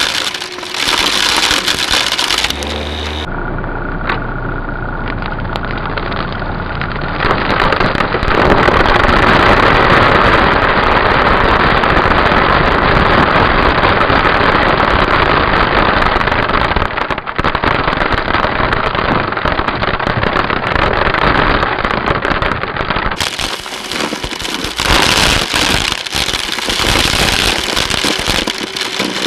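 Bissell upright vacuum cleaner running while its floor head crunches through a pile of crinkly metallic foil pieces and plastic beads on carpet, a dense crackling over the motor. From a few seconds in until near the end the sound is slowed down, lower and duller, then returns to normal speed.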